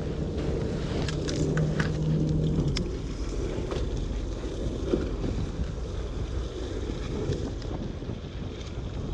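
Steady low rumble of a fishing boat at sea, with wind on the microphone and water washing along the hull. A low hum stops about three seconds in, and a few light clicks come early.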